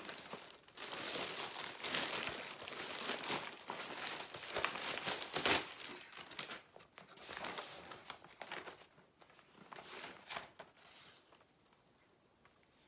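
Plastic courier satchel and brown paper packaging crinkling and rustling as a parcel is pulled out, loudest about halfway through; the rustling thins out to a faint sheet of paper being handled near the end.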